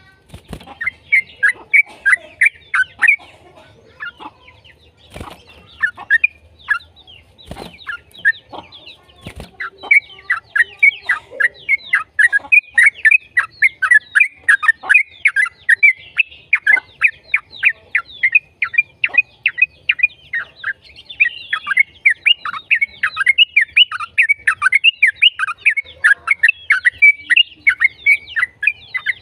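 Yellow-vented bulbul (trucukan) singing a fast, chattering run of quick down-slurred chirps, sparse with a few sharp clicks at first, then a dense unbroken string of notes from about ten seconds in.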